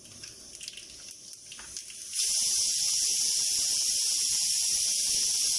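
Hot oil sizzling loudly in a small tempering pan with mustard, cumin and fenugreek seeds in it. The steady hiss starts suddenly about two seconds in, with a light crackle under it.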